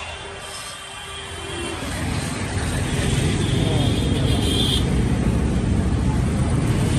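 Low rumble of a motor vehicle running close by in street traffic, swelling about two seconds in and then holding steady.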